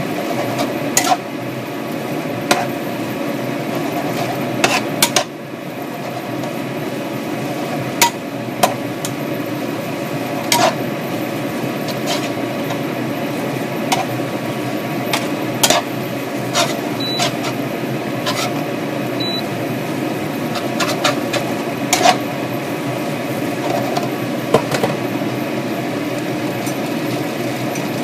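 A spatula knocking and scraping against a frying pan while vegetables and noodles are stir-fried: irregular sharp clicks every second or two over a steady background hiss.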